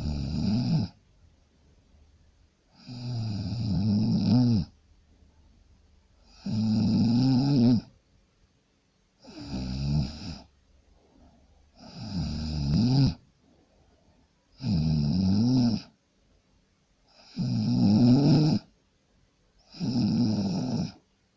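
Loud, regular snoring: eight rattling snores, each about one to two seconds long, one every two and a half to three seconds, with quiet breaths between.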